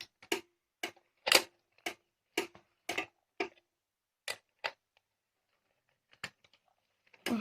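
Sharp, even clicking about twice a second from the fire-alarm equipment as it is being disarmed, thinning to a few scattered clicks after about four seconds.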